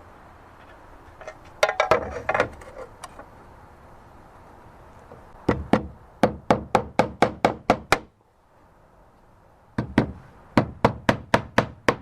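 Hammer driving nails to fix a roofing slate: two quick runs of sharp blows, about five a second, the first a few seconds after a short clatter of slate being handled.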